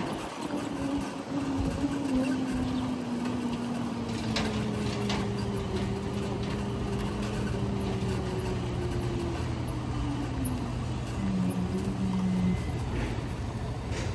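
Street traffic and road noise heard from a moving electric motorcycle, with a whine that slowly falls in pitch over several seconds, then a short steady tone near the end.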